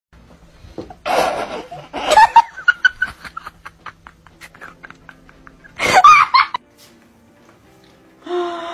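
Several bursts of laughter, the loudest about two seconds in and again around six seconds, with quick short clicks between them. Near the end a steady held tone starts.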